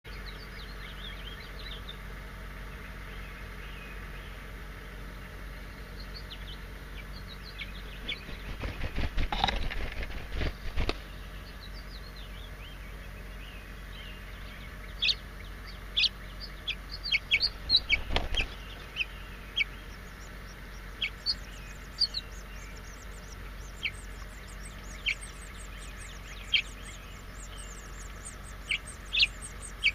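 House finch chicks in the nest cheeping: short, sharp chirps scattered throughout, becoming a rapid, high-pitched begging chatter in the last several seconds as the adults feed them. Bursts of rustling and wing flutter about eight to eleven seconds in and again briefly around eighteen seconds, as an adult comes to the nest.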